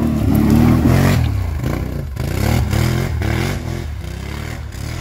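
ATV engine revving hard under load on a steep dirt climb. The revs surge and drop again and again, about twice a second in the second half.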